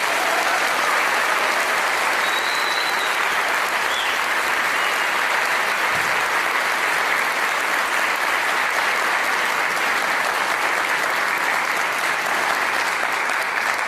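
A large audience applauding, one long steady round of clapping.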